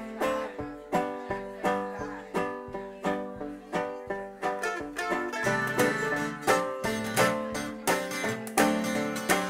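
Banjo picking a steady instrumental passage, with acoustic guitar strumming along underneath, played live.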